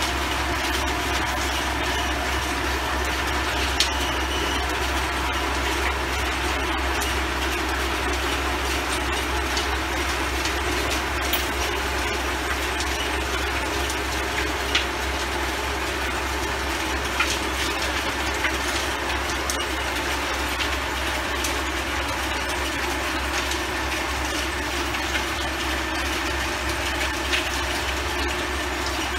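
Antonio Carraro TRX 9900 tractor engine running steadily under load while its rear rotavator churns the soil. A few sharp clicks stand out now and then over the steady low hum.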